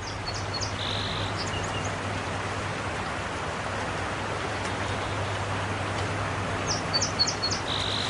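Steady rushing of a creek, with short high chirps in two brief runs, one near the start and one near the end.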